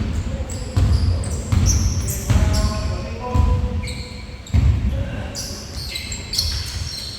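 Basketball bouncing on a gym floor during a game, a string of irregular thuds, with short high squeaks scattered among them.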